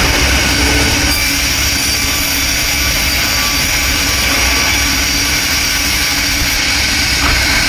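Sawmill machinery running steadily, a constant loud mechanical hum and rumble over a dense high hiss.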